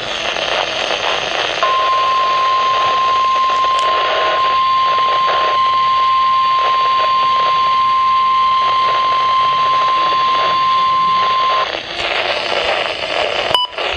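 NOAA Weather Radio warning alarm tone from a Midland WR-100 weather radio: one steady high tone near 1050 Hz, held for about ten seconds over radio static hiss. It signals that a warning message follows. The signal drops out briefly near the end.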